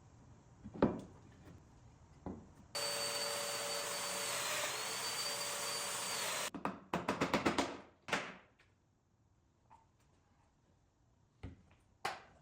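A handheld power tool runs for about four seconds with a steady motor whine that dips briefly in pitch midway, as if under load. Then comes a quick run of about eight knocks, and a few single knocks and thumps from work at the bench.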